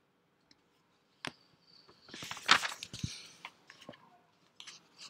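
A few sharp clicks and a short crackling rustle, about two to three seconds in, amid near silence.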